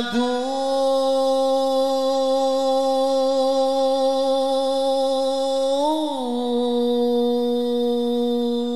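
A male voice holds one long sung note at the opening of a sholawat (Islamic devotional song), with a short upward turn about six seconds in before it settles back on the same pitch.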